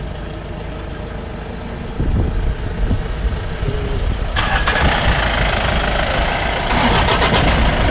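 Safari jeep engine running at idle, then getting louder about two seconds in as the jeep pulls away. From about four and a half seconds a rushing noise of wind and tyres joins in as it drives on.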